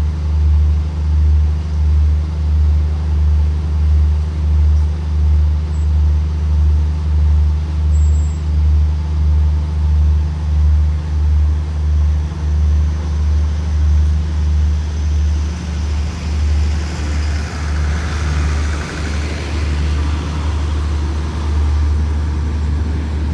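Deep diesel hum from a passenger train at the platform, throbbing at about one and a half beats a second. About two-thirds of the way through, as the train starts to roll, the throb turns uneven and a hiss swells and fades.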